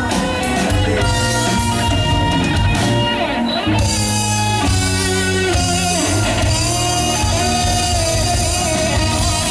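A live pop-rock band playing through a stage PA, with a guitar melody to the fore over bass and drums.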